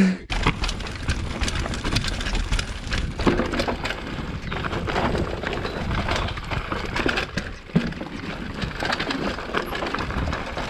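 Mountain bike riding down a dirt forest trail: tyres running over dirt and roots, with constant rattling and clicking from the bike. It starts abruptly with a knock.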